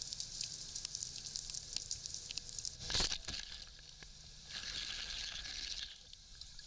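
Underwater recording: a steady crackle of fine clicks and sizzling, broken about three seconds in by one sharp, loud report as a speargun fires into an amberjack.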